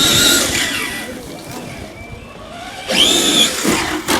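Brushless electric motor of a 1/5-scale RC monster truck whining up in pitch as it accelerates, twice: once at the start and again about three seconds in, the second time falling back down after a moment.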